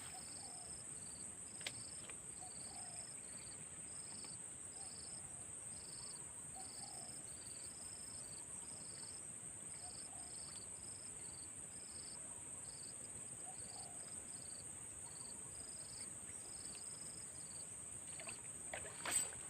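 Insects droning: a steady high-pitched whine with short chirps repeating about once or twice a second. A faint click comes about two seconds in and a sharper knock near the end.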